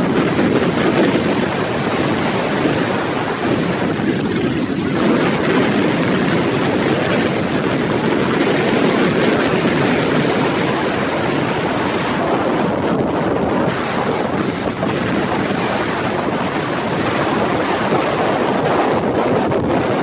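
Strong wind blowing across the microphone, a loud, steady rush of noise.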